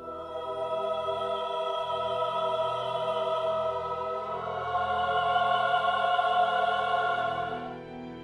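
Soundtrack music: sustained wordless voices holding one chord, moving to a new chord about halfway through and fading near the end.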